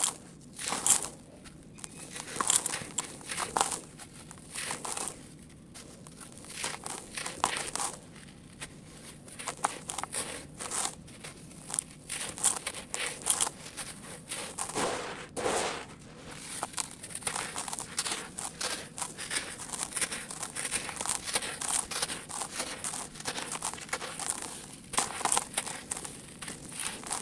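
Hands crumbling packed blocks of dry sandy grit and letting it pour through the fingers: a run of irregular gritty crunches and sifting, pattering trickles of falling grains.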